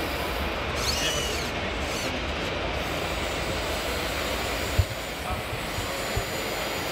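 Steady background din of a busy exhibition hall, with faint voices in it, and a single short knock about five seconds in.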